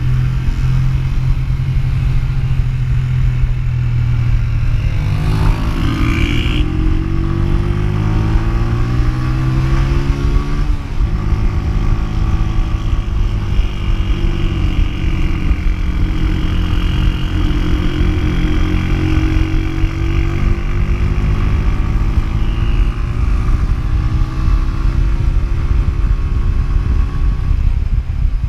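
Honda CG125's single-cylinder four-stroke engine running under way, over a steady rush of wind. The revs climb for several seconds, drop sharply about eleven seconds in, then rise and ease again.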